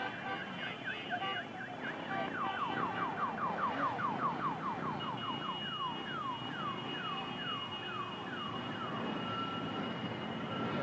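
Electronic siren-like chirping: rapid falling chirps, about five a second, that slow to about two a second, with a steady high tone joining about halfway through.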